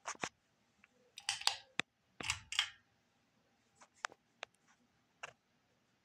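Sharp switch clicks and short rustling handling noise as a ceiling fan and its light kit are switched on: a few clicks at the start, two brief scrapes in the first three seconds, then four single clicks spread through the second half.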